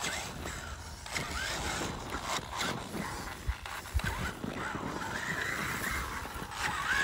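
Traxxas Summit RC monster truck's electric motor whining, its pitch rising and falling with the throttle as the truck climbs over loose dirt. There are a couple of brief low thumps around the middle.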